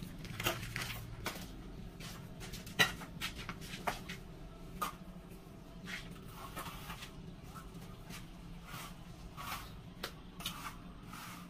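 Steel trowel scraping and tapping in wet mortar as the bed for floor tiles is spread on concrete: irregular scrapes and light clicks, with one sharp knock about three seconds in.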